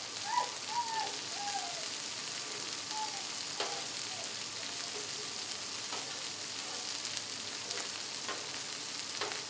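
Hamburger slider patties and onions sizzling steadily on a steel flat-top griddle. A metal spatula now and then scrapes and clicks against the steel as the patties are cut apart into groups.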